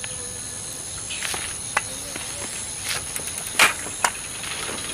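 Steady high-pitched drone of insects, with a few short sharp clicks or knocks, the loudest about three and a half seconds in.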